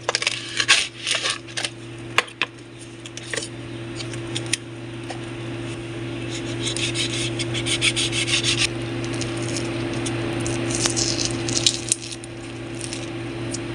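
Knife cutting a dragon fruit on a wooden chopping board: sharp knocks of the blade on the board, then long rubbing and scraping as the flesh is pulled away from the skin. A steady low hum underneath.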